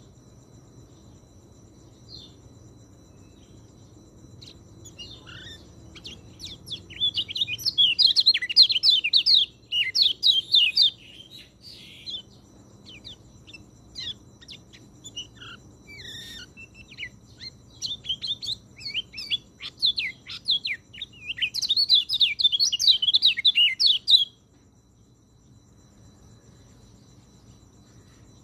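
Orange-headed thrush (peleci) singing a fast, varied song of chirps and trills in two long bursts, with a short break midway; the song stops a few seconds before the end, leaving faint steady background hum.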